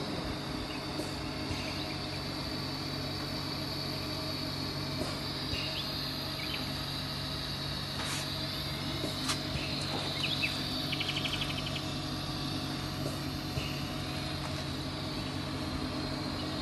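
Oxygen-facial beauty machine running, its pumps and cooling fans giving a steady hum with a high hiss, and a few faint clicks.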